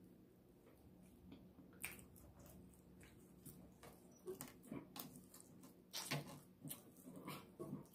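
Faint chewing and wet mouth smacks from eating rotisserie chicken: scattered short clicks, sparse at first and coming more often from about halfway through.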